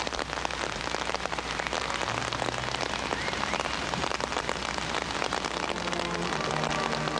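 Steady rain pattering on umbrellas, a dense hiss full of small drop hits. Near the end a band begins to play a few low notes.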